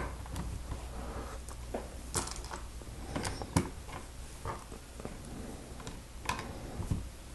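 Plastic Lego pieces being handled and pressed together: scattered small clicks and light rattles at irregular intervals, the sharpest about two and three and a half seconds in, over a steady low hum.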